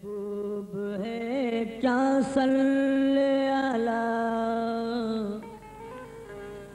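A single voice singing a slow, drawn-out devotional melody in qawwali style. Short wavering ornaments lead into one long held note, and the singing drops in level toward the end.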